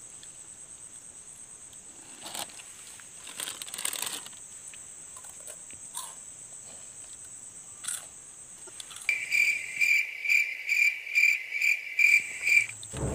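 A steady high-pitched insect drone runs throughout, with a few brief crinkles of a plastic snack packet being handled. From about nine seconds in, a louder chirp repeats about two to three times a second, then stops just before the end.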